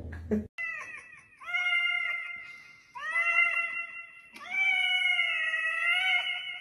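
A calico cat meowing into a toy karaoke microphone, its voice coming back through the microphone's built-in speaker: four long, drawn-out meows one after another, the last the longest.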